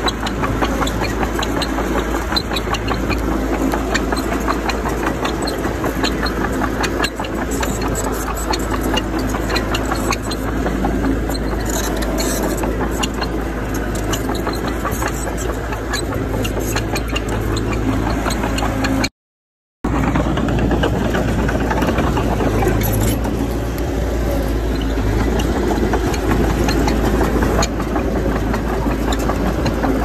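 Diesel engine of heavy earthmoving machinery running steadily under a light clatter. The sound drops out for about half a second a little past the middle.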